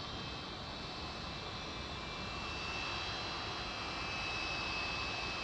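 Jet aircraft engine running: a steady rushing noise with a thin high whine over it, slowly growing louder.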